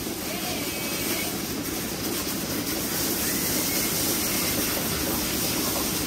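Water jet from a hose spray gun washing down milking clusters and a stainless steel parlour rail: a steady rushing hiss of spray.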